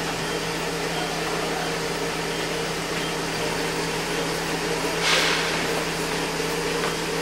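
A steady mechanical hum holding one low tone with fainter overtones, with a brief rush of hiss about five seconds in.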